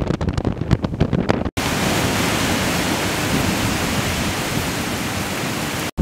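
Storm wind gusting and buffeting the microphone, then about a second and a half in, after a sudden cut, the steady, even hiss of heavy rain pouring down.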